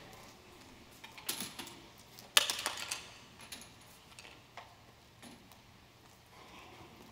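A few soft clicks and rustles in a quiet hall, the loudest a short cluster about two and a half seconds in, then only faint ticks.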